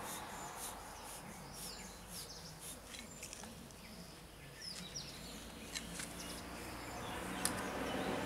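Outdoor ambience of birds chirping and insects calling, with short high chirps scattered through and a low hum that grows a little louder near the end.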